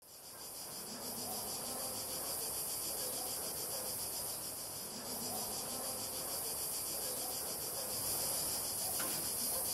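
Dense, steady high-pitched chirring of a chorus of summer insects, fading in over the first second.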